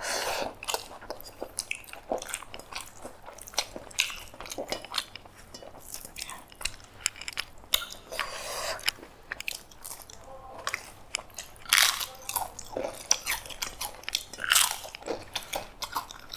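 Crisp fried papad (papadum) being bitten and chewed up close, a string of irregular crunches and crackles.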